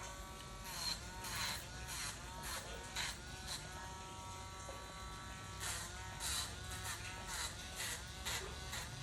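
Electric pet nail grinder buzzing on a dog's nails, its pitch dipping and recovering several times, with short scratchy grinding noises.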